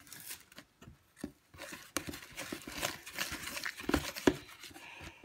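Fork stirring a sticky flour-and-water dough in a glass bowl: irregular squishing and scraping, with a few sharp clinks of the fork against the glass.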